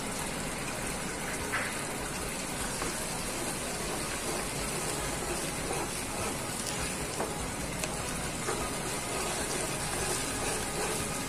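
Manchurian gravy simmering and bubbling in a non-stick wok while a silicone spatula stirs through it, at the stage where cornflour slurry has gone in to thicken the sauce. A steady wet bubbling hiss with faint scrapes of the spatula.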